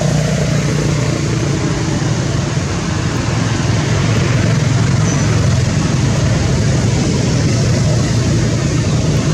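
A loud, steady drone of a motor running, with a low hum that stays unchanged throughout.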